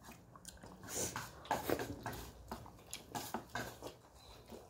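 Close-up eating sounds: chewing and lip smacks as rice and omelette are eaten by hand, with irregular soft clicks of fingers mixing food in a steel plate.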